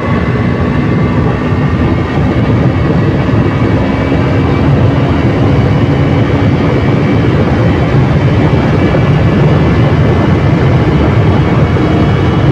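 KTM RC 200's single-cylinder engine and stock exhaust running steadily while the bike is ridden along, picked up by a mic mounted on the bike, with a heavy rush of low noise under the engine note. The level steps up slightly about two seconds in.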